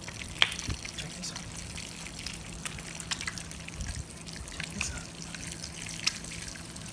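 An egg frying in oil in a small frying pan, crackling and sizzling steadily with many small pops. There is a single sharp click about half a second in.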